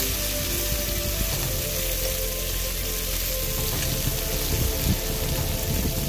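Pieces of Spanish mackerel and garlic frying in a pan, sizzling steadily, while a fork turns them.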